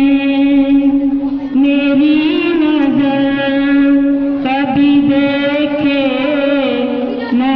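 A woman singing an Urdu prayer song into a microphone, holding long wavering notes, with short breaks between phrases about a second and a half in, about four and a half seconds in, and near the end.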